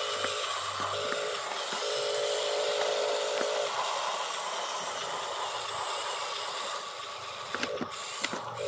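Electric motor and gears of a radio-controlled dump truck whining in stop-start stretches as it drives, over a steady hiss, with a few light clicks near the end.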